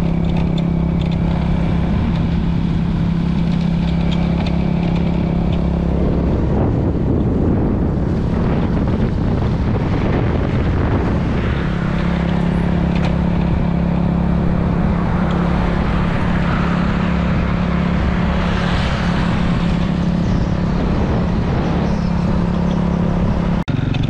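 Motorcycle engine running at a steady cruise with wind and road noise, heard from the rider's own bike. For several seconds midway the steady engine hum breaks up into a rougher rumble, then settles again.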